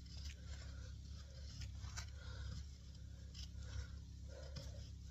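JXE JXO Cavalry knife's 420HC steel blade shaving curls down a stick of frozen hardwood: faint, irregular scraping strokes with a few short sharp clicks.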